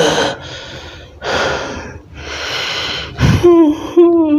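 A man breathing hard in loud, rushing gasps, four or five heavy breaths in a row. About three seconds in, a drawn-out voiced groan takes over, its pitch dipping and rising.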